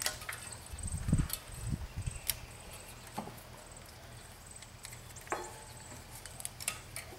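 Scattered light clicks and knocks of small metal carburetor parts and linkage being handled and worked free by hand from a Briggs & Stratton 12 hp OHV engine, with a few dull thumps about a second in, over a faint steady low hum.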